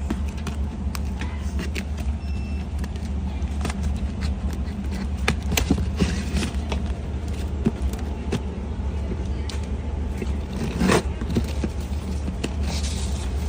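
A sealed box being opened and its contents handled: scattered sharp clicks, taps and knocks of cardboard and plastic packaging, over a steady low hum.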